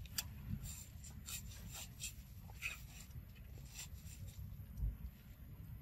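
Faint, scattered clicks and crinkling from a small paper drink carton being handled and sucked through its straw by a macaque, over a low rumble, with a dull bump near the end.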